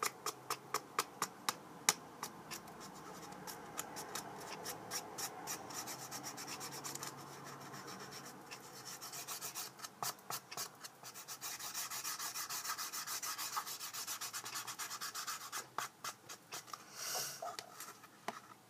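Fingers rubbing and handling a tape-wrapped cardboard toilet-paper tube, a scratchy rubbing with scattered sharp clicks; the clicks come quickly, about three a second, for the first couple of seconds.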